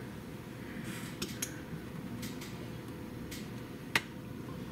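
A few light, sharp clicks and knocks from a glass mixing bowl being handled as thick pumpkin pie filling is poured from it into a pie shell, the loudest about four seconds in, over a low steady room hum.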